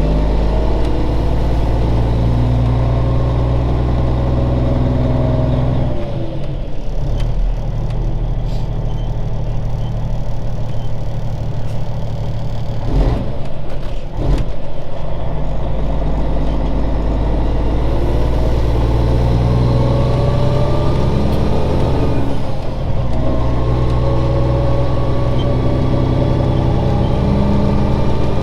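Cummins Signature Series diesel in a 1999 Peterbilt 379 pulling through the gears. The engine note climbs steadily and breaks off briefly three times for gear shifts. The owner says this engine is due for a rebuild.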